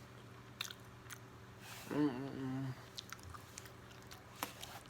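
Close-miked chewing of a burrito, with wet mouth clicks scattered throughout. About two seconds in, the eater gives a short hum, the loudest sound.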